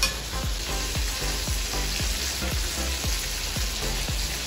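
Battered zucchini tempura slices deep-frying in hot oil in a frying pan, a steady dense sizzle. Soft low thumps repeat underneath at nearly three a second.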